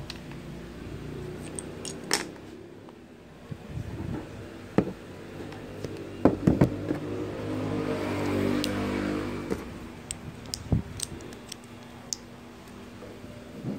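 Plastic Lego bricks clicking and knocking as a small brick-built toy gun is handled and its parts moved, with a soft rubbing stretch around the middle. A steady low hum runs underneath.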